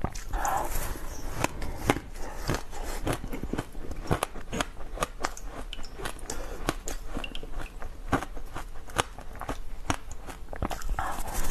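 Ice being bitten and chewed close up: an irregular run of sharp crunches and cracks, several a second.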